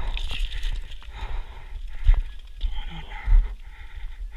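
Low rumble of wind or handling noise on an action-camera microphone, with faint chatter from a group of stopped mountain bikers and two sharp knocks, about two seconds in and near the end.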